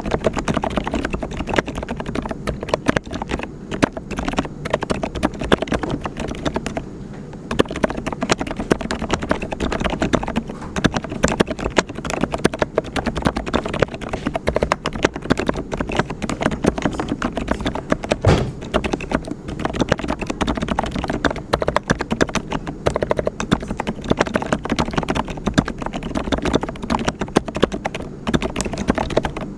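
Mechanical keyboard with brown (tactile) switches being typed on continuously: a dense, fast run of key strokes, with a short pause about seven seconds in and one louder stroke about eighteen seconds in.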